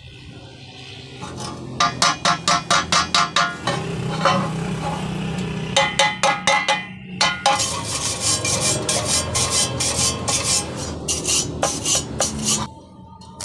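A hammer tapping on steel, with a quick even run of about ten strikes, several more strikes a little later, then denser scraping and rasping on the metal.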